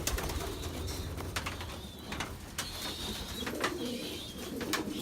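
Pigeons cooing in a loft, low murmuring calls strongest near the end, with scattered sharp clicks and taps among them.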